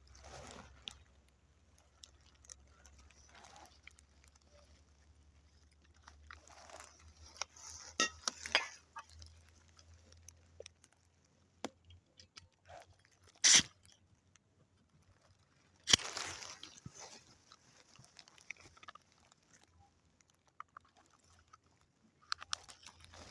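Crunching and rustling of movement through dry leaves and brush. A few sharp snaps or cracks come through, the loudest two about 13 and 16 seconds in.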